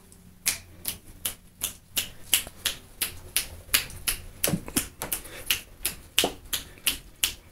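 Rapid finger snapping: a long run of sharp snaps, about three or four a second, with both hands.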